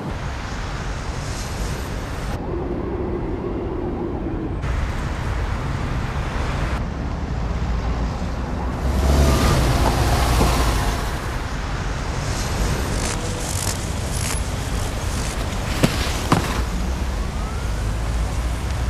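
Winter city street ambience: a steady low rumble of traffic. It swells for a couple of seconds about nine seconds in, as a vehicle passes, and two sharp knocks come near the end.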